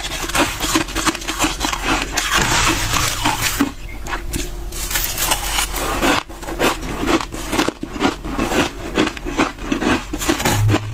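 Freezer frost crunching close to the microphone in many quick, repeated crunches, with a smoother, hissing stretch about two seconds in.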